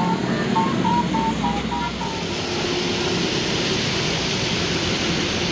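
Basuri (telolet) bus horn playing a quick tune of short, high notes, which stops about two seconds in. Steady rushing road noise of passing traffic follows.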